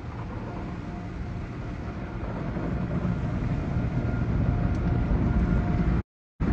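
Automatic tunnel car wash heard from inside the car: a steady rumble of brushes and water spray working over the body, growing louder, with the sound cutting out for a moment near the end.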